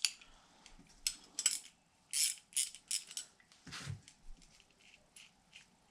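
Metal hand tools and hardware clicking and clinking, with a few quick ratchet-like clicks in a run a little past two seconds in and a duller knock near four seconds.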